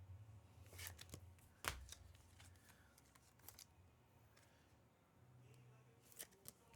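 Trading cards being handled and sorted by hand: faint card shuffling with a few sharp clicks and taps, over a low hum.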